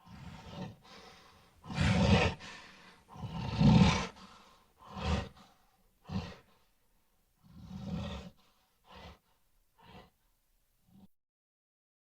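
King Kong sound effect: a giant gorilla's voice in a series of short grunts and breathy huffs, the strongest about two and four seconds in, then shorter and fainter toward the end.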